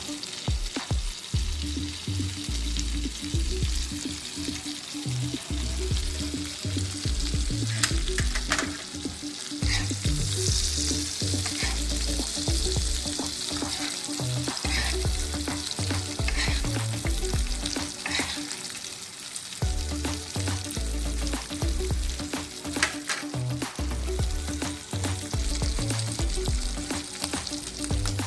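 Fish pan-frying in oil and butter, a steady sizzle with a few sharp clicks now and then.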